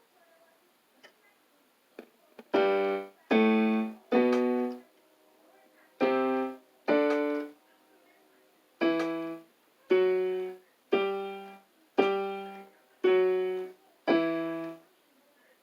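Electronic keyboard playing about eleven separate short notes, each held about half a second and then released, in small groups after a few soft key clicks. The notes have a buzzy, many-overtoned tone.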